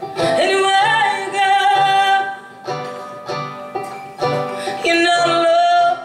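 Live band music: a woman singing over banjo, electric guitar and drums, her sung lines swelling in the first two seconds and again near the end over a steady beat.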